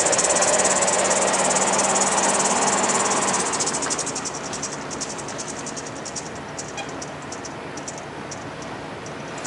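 A 2001 Chevrolet 1-ton box truck's 5.7L V8 gasoline engine and tyres pulling away, the sound fading as it goes. Insects chirp in a fast, even pulse throughout.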